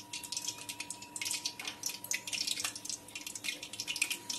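Hot oil and freshly added ghee sizzling and crackling in a metal kadai, with many small irregular pops.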